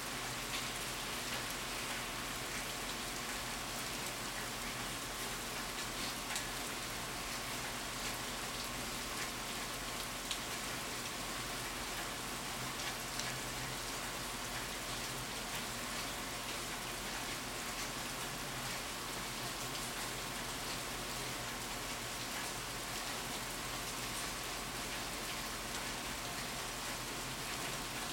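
Steady rainfall, an even hiss of rain with scattered individual drops ticking on surfaces.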